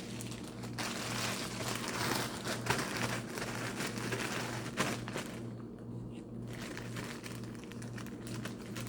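Popcorn bag crinkling and rustling as it is handled, busiest in the first five seconds or so and quieter after that.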